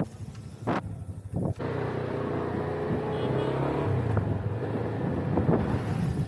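A vehicle engine running, with road noise, while driving along. It becomes steadier and louder about a second and a half in.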